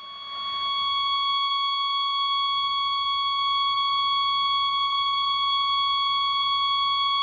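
A continuous electronic beep, a heart-monitor flatline sound effect, swelling in over about the first second and then holding at one steady pitch.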